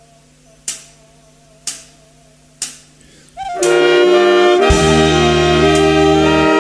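Instrumental karaoke backing track of a Thai luk thung song. A faint held tone is broken by three sharp percussion hits about a second apart, then a horn section comes in loud with full chords about halfway through, and bass joins a second later.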